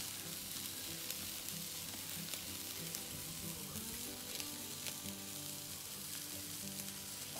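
Raw roast beef sizzling on the hot grate of an El Fuego Portland charcoal kettle grill over briquettes and wood burning at full draught, the start of a hard sear. It is a steady hiss with scattered small crackles.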